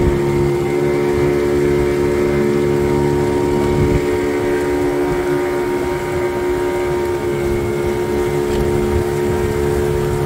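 Motorised outrigger boat's engine running steadily at cruising speed, an even drone that holds the same pitch throughout, over the rush of water along the hull.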